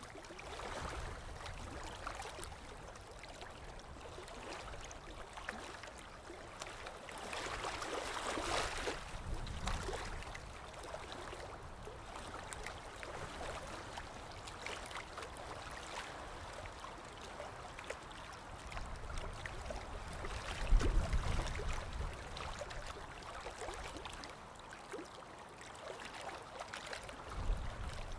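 River water running steadily, with small gurgles and splashes throughout. Low rumbles swell briefly about two-thirds of the way through and again near the end.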